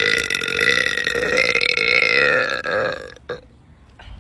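A woman's long, drawn-out burp, steady in pitch, that stops a little under three seconds in.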